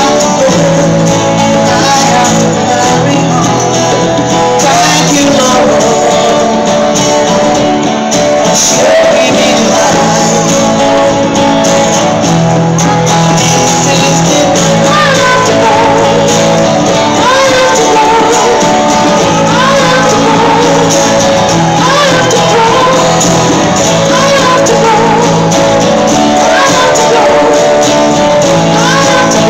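Live band music with a lead singer at a concert, loud and steady, with a tambourine in the mix.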